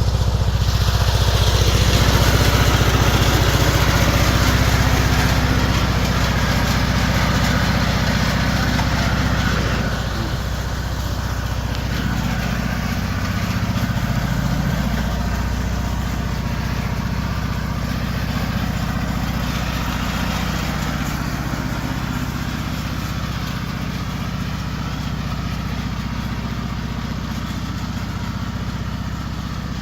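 Riding lawn mower's small engine running steadily, a little quieter from about ten seconds in, its pitch dipping and shifting for a few seconds around the middle as it is driven.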